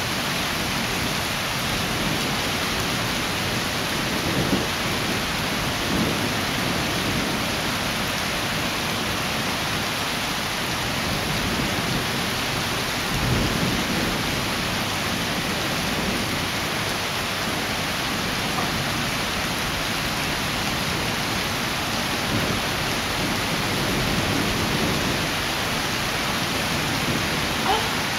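Thunderstorm: steady rain hissing throughout, with several low rolls of thunder, the strongest about thirteen seconds in.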